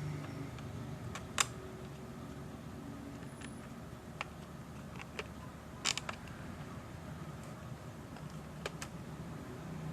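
Small screwdriver clicking and creaking against a laptop's plastic case as screws are driven back in. A handful of scattered sharp clicks, the loudest about six seconds in.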